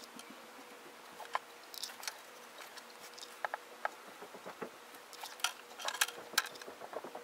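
Faint scattered ticks and light scratches of a thin paintbrush dipping into a small bottle of glimmer glaze and dabbing the glaze onto a chipboard sunburst, with a few brief clusters of clicks. A faint steady hum runs underneath.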